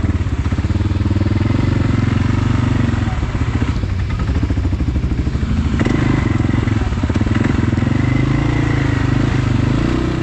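ATV engine running steadily, its note rising and falling with the throttle.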